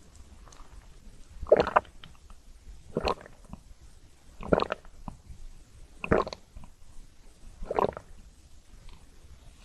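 Close-miked wet mouth sounds of eating chocolate-coated ice cream, five bites or gulps at even intervals of about a second and a half.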